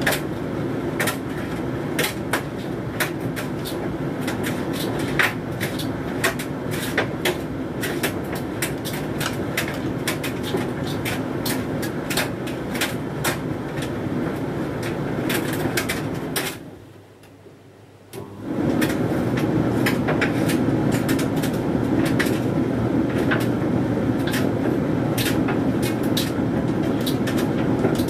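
Hoover Dynamic Mega 10kg condenser tumble dryer running, its drum tumbling a load of synthetics with frequent sharp clicks and knocks. About two-thirds of the way through, the drum stops for about two seconds, then starts turning again.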